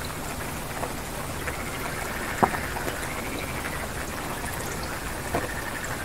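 Steady rain with drops pattering on a surface, and a frog calling in pulsed trills, twice. A few louder single drips stand out, the loudest about two and a half seconds in.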